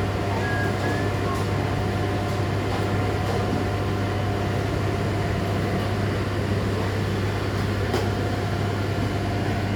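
Heavy engine running at a steady speed: a constant low drone with a faint steady whine above it. There is one light knock about eight seconds in.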